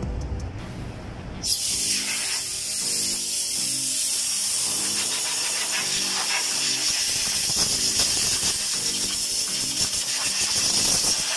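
Compressed-air blow gun hissing in one continuous blast, starting suddenly about a second and a half in, blowing out the water pump mounting area of the engine. Faint background music underneath.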